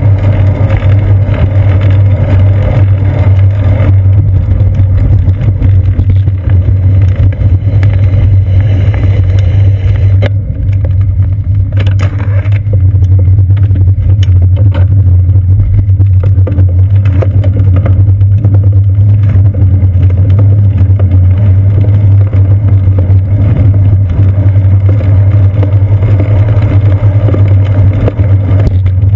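Loud, steady low rumble of wind and road vibration on a seat-post-mounted GoPro Hero 2 while riding a bicycle.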